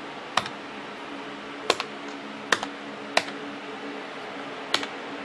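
Keys on a Macintosh PowerBook 180's built-in keyboard pressed one at a time, five separate clicks at uneven intervals of roughly a second, as each key is tried to see whether it still works. A faint steady hum runs underneath.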